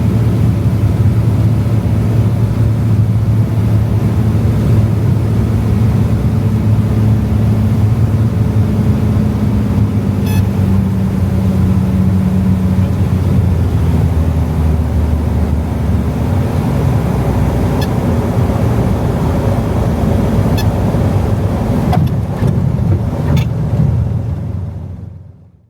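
A large engine running steadily, with a low hum whose pitch shifts slightly about halfway through, fading out near the end.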